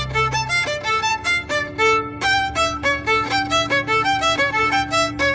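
Background music: a quick, bouncy violin melody of short separate notes over a steady low bass note.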